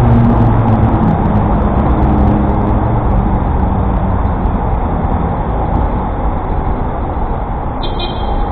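City road traffic heard from a moving bicycle: a steady, heavy low rumble, with a vehicle's engine note fading away over the first couple of seconds. A high squeal starts near the end.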